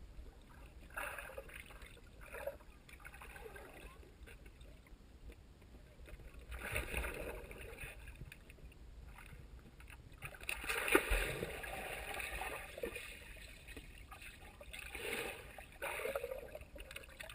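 Muffled sloshing and splashing of pool water, heard through a camera held underwater as a dog paddles nearby, coming in irregular swells.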